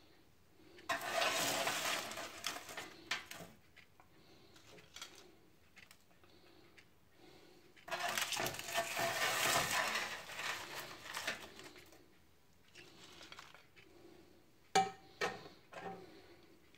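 French fries being scooped off a paper-lined baking tray onto a plate with a plastic spoon: two stretches of scraping and rustling, about a second in and around eight seconds in, with quieter scrapes between. A couple of sharp knocks come near the end.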